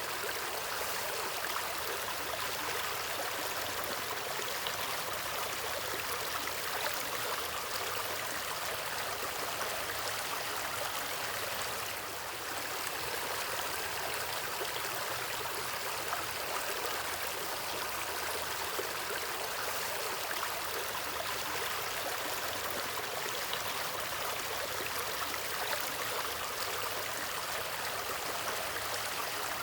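Stream water flowing and burbling steadily, with a brief slight dip in level about twelve seconds in.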